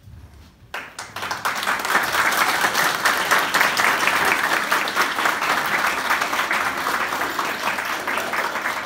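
Audience applauding. It breaks out suddenly about a second in, swells quickly to a full, steady clapping and holds.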